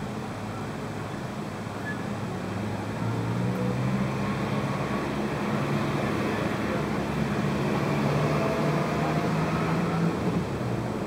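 Indistinct voices over steady background noise, louder from about three seconds in until near the end.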